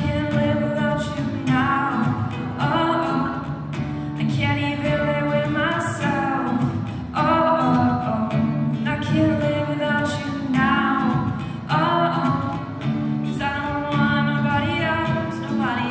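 A woman singing a song live with acoustic guitar accompaniment, her sung lines rising, falling and held throughout.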